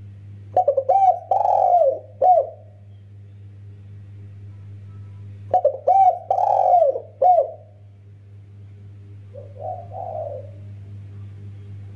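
Spotted dove (tekukur) cooing: three phrases of several coos, each about two seconds long, the last one fainter.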